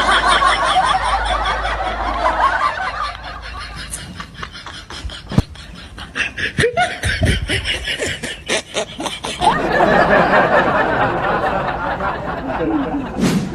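Laughter, fuller at the start and near the end, with a run of quick short laughs through the middle.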